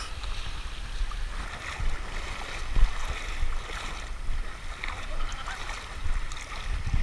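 Shallow seawater splashing and lapping close to the microphone, with wind rumbling on the microphone throughout.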